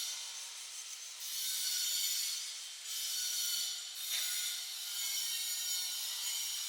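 Stick welding arc crackling and hissing, with a few brief breaks in the arc.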